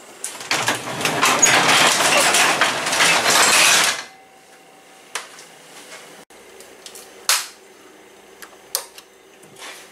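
Sectional garage door rolled down, rattling for about four seconds and stopping abruptly as it shuts. A few sharp separate clicks follow, among them a power strip switch being flicked off.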